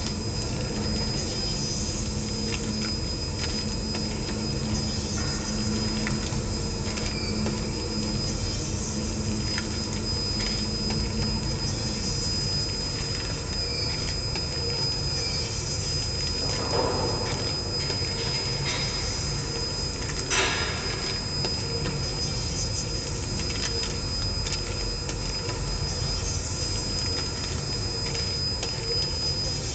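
Checkweigher with its conveyor belt running, a steady machine noise with a thin high whine. A low hum stops about twelve seconds in, and there are two brief louder noises in the second half.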